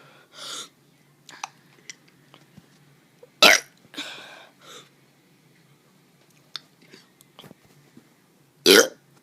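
A child forcing out short burps, two loud ones about three and a half and nine seconds in, each followed by breathy air and with small mouth clicks in between.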